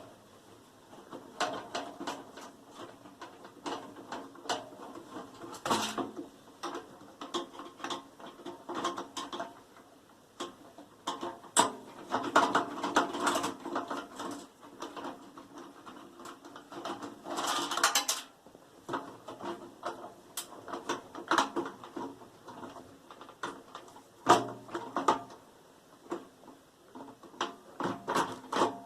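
Metal parts of a microwave oven being taken apart by hand: irregular clicks, clinks and scraping, with a few longer, louder rattling bursts.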